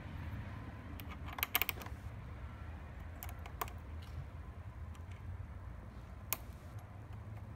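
Small metallic clicks and taps of a hand tool working a car battery terminal: a quick run of clicks about a second and a half in, then single clicks a few seconds later.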